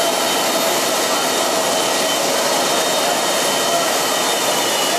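Airliner jet engines running steadily: an even rushing noise with a faint high whine.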